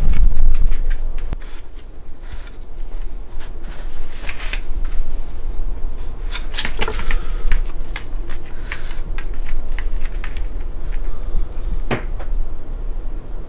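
Scattered light clicks and taps, likely a Boston terrier's claws on the kitchen floor and scrabbling against a cabinet drawer as it walks up and jumps against it, with a low rumble near the start.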